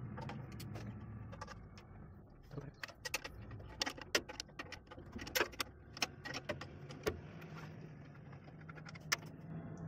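Irregular metallic clicks and clinks of a hand wrench working the 14 mm bolts of a Nissan diesel truck's clutch cover, coming thick from a couple of seconds in. A low steady hum runs underneath.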